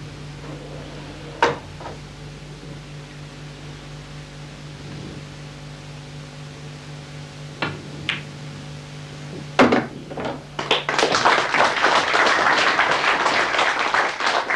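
Pool balls clicking under cue shots: single sharp clicks about a second and a half in and twice around eight seconds, then a louder knock near ten seconds. Audience applause follows as the frame is won and carries on to the end. A steady low hum sits underneath.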